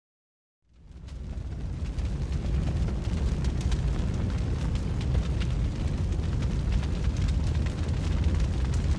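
Silence, then about a second in a deep, steady rumble with dense crackling fades in and holds, an eruption-like title sound effect.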